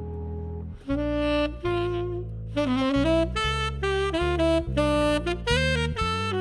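Tenor saxophone soloing in a jazz quintet: a long held note ends just under a second in, then a run of quick, moving phrases follows over low sustained chords from the band.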